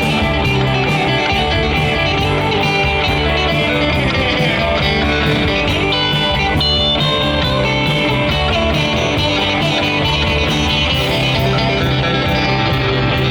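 Live country band playing an instrumental break, a guitar taking the lead over a steady beat.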